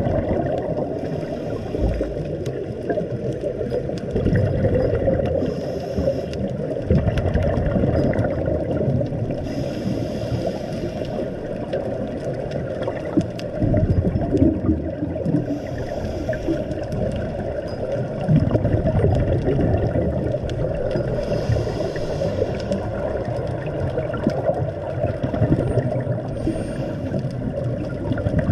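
Underwater ambience picked up by a camera in its waterproof housing: a steady low churning rumble of moving water. A faint hiss recurs about every five or six seconds.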